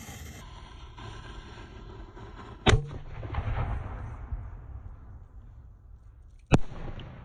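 Firework mortar shot: the burning fuse hisses, then the lift charge fires the shell out of the mortar tube with a loud bang about 2.7 seconds in, followed by a rumbling tail, and the shell bursts overhead with a second sharp bang near the end.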